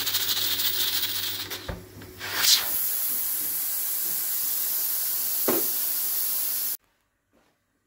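Aluminium stovetop pressure cooker releasing steam through its vent with the whistle weight lifted, a loud, steady hiss. The hiss surges about two and a half seconds in and cuts off suddenly near the end.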